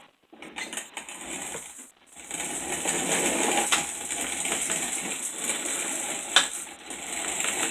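Hand-cranked manual grain mill grinding wheat berries, a steady gritty rattle with a couple of sharper clicks, run with its hopper not yet fitted.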